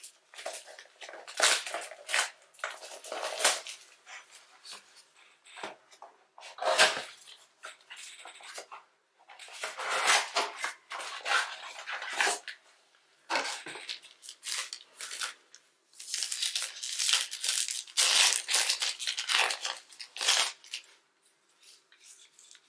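Trading card pack wrappers being torn open and crinkled by hand, in irregular bursts of rustling, the longest about two-thirds of the way through.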